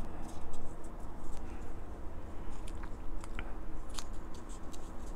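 Cardstock being folded and creased by hand along its score lines: scattered small paper crackles and ticks, over a steady low rumble.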